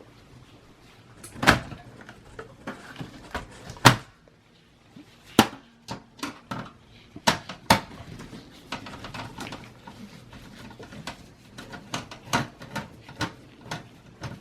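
Irregular clicks and knocks of a motherboard being worked loose and handled inside a Dell Optiplex 780 small-form-factor computer case, with the loudest knock about four seconds in and a run of lighter clicks near the end.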